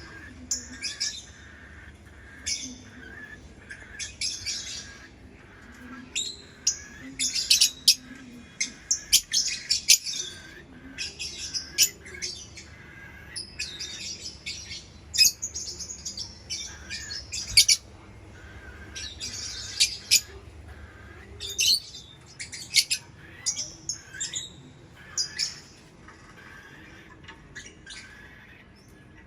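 Lovebird chirping: short, high-pitched calls coming in irregular clusters, some quick runs of several calls close together, with brief lulls in between.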